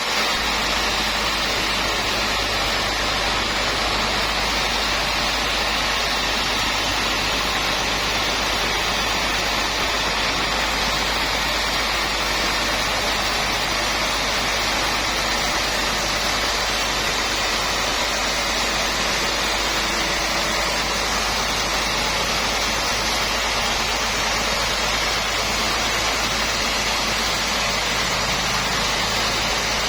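Sawmill machinery running with a steady, even noise that does not change.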